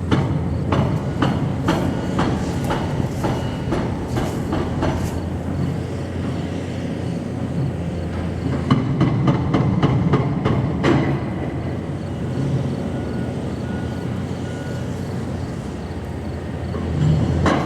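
Demolition machinery at work on grain silos: a heavy engine running steadily under a string of sharp clanks and knocks, thick in the first five seconds and again around nine to eleven seconds.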